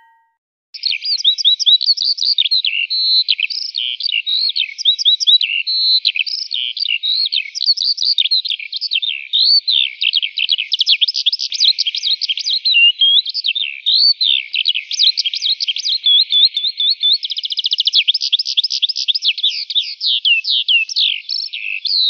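Bird chatter for a cartoon bird: a fast, unbroken stream of high chirps and twitters sliding up and down, starting about a second in, with a quicker trill about two-thirds of the way through.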